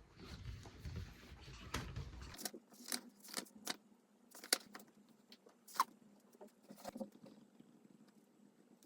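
Faint, scattered light clicks and taps at an uneven pace, over a low rumble that stops after about two seconds.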